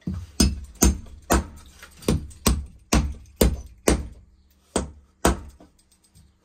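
Hammer knocking square-necked bolts into a wooden door to seat their square shoulders in the wood: about a dozen sharp knocks, roughly two a second, with a short pause before the last two, stopping about five seconds in.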